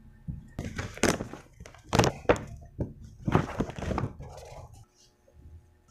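Paper gift bag rustling and crinkling as it is handled and tipped open, with a few light knocks; the handling stops about five seconds in.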